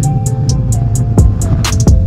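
Electronic background music with a steady beat: quick high ticks like hi-hats over a deep bass line, held synth notes and two heavy kick-drum hits in the second half.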